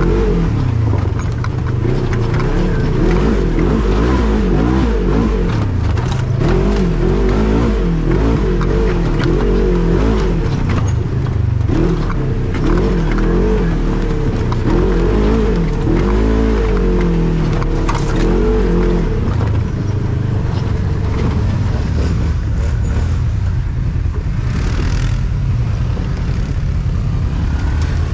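Off-road vehicle engine revving up and down as it is driven along a rough trail, the pitch rising and falling every second or two, with occasional knocks and rattles over bumps.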